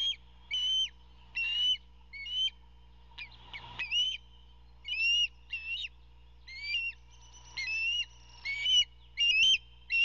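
Osprey calling in a long series of short, whistled chirps, about one to two a second, that grow louder near the end.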